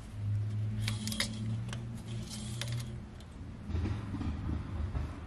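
Metal oil dipstick sliding and clicking in its tube as it is pushed in and pulled out to check the oil level, in short scrapes about a second in and again around two and a half seconds. A steady low hum runs underneath.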